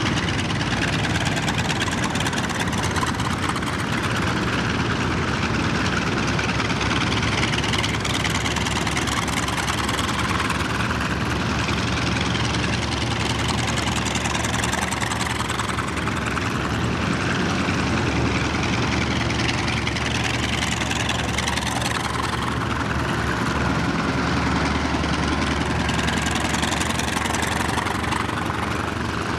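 Radial engines of several North American T-28 Trojan trainers running at low taxi power as the planes roll past one after another, a steady low engine drone with propeller noise.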